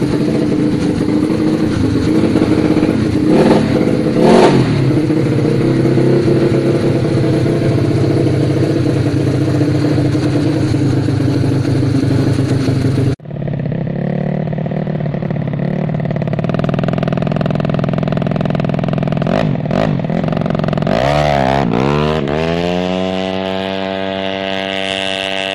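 Yamaha Mio scooter's engine running steadily, with two sharp knocks about three and four seconds in. After a cut about 13 seconds in the engine runs again, then revs up in a rising whine about 21 seconds in and holds a higher steady note.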